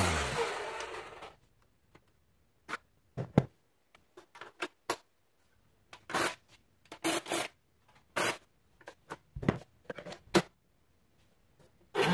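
A Black & Decker cordless string trimmer's motor spinning down over the first second. Then comes a scattered series of plastic clicks, clunks and knocks as the battery adapter is unlatched and clipped onto another tool. A cordless blower's motor starts right at the end.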